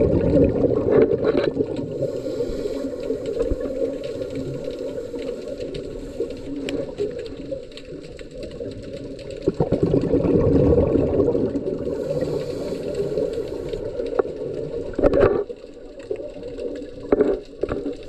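Muffled underwater sound, with a scuba diver's exhaled bubbles gurgling from the regulator in surges, the strongest about ten seconds in and shorter ones near fifteen and seventeen seconds. Faint clicks run through it.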